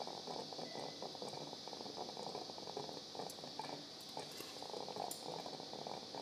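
Quiet operating-room background: a steady high hiss with a faint, even crackle beneath it and a few soft clicks.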